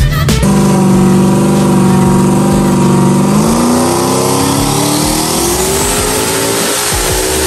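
Turbocharged LS V8 engine of a Honda S2000 running on a chassis dyno: it holds a steady engine speed for about three seconds, then its revs climb smoothly and steadily in a dyno pull.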